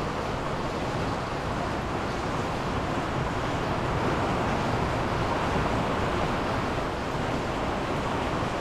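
Steady rain falling on the forest and on the greenhouse's glass walls and roof, heard from inside: a dense, even hiss with no let-up, a little louder midway.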